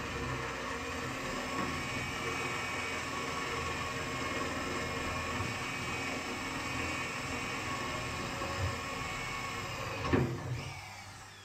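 Corded electric drill running steadily as it bores into the narrowboat's steel hull side, its pitch wavering a little. It stops with a knock about ten seconds in.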